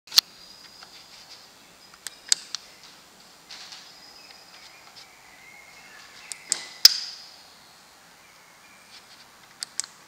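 Sharp clicks from the selector knob and buttons of a Miele Professional PT 7136 Vario tumble dryer's control panel being turned and pressed, in small clusters, the loudest about seven seconds in, with faint thin tones between them.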